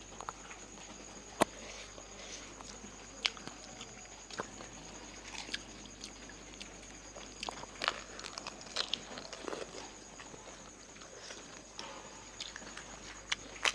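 People chewing and crunching crisp fuchka (pani puri) shells, with scattered sharp clicks and crackles; the loudest click comes about a second and a half in.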